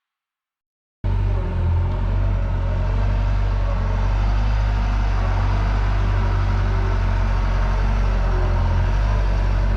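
The diesel engine of a compact construction machine running steadily with a heavy low rumble. It cuts in abruptly about a second in, after silence.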